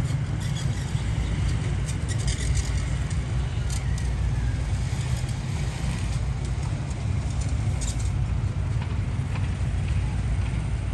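Steady low rumble of idling road vehicle engines, with scattered faint clicks and ticks over it.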